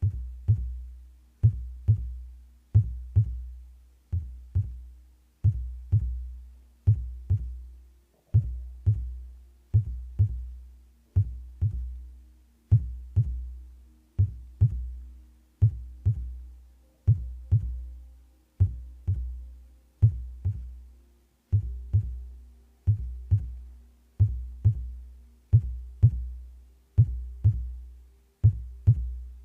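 Heartbeat sound: deep paired lub-dub thumps repeating slowly and evenly, about forty beats a minute, each followed by a fading low rumble.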